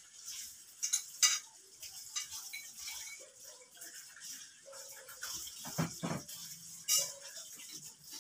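Irregular light clinks and knocks of dishes and utensils being handled at a kitchen sink, with a couple of heavier knocks about six seconds in.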